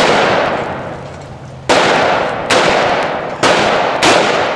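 Five gunshots fired at uneven intervals, each trailing off in a long echoing decay.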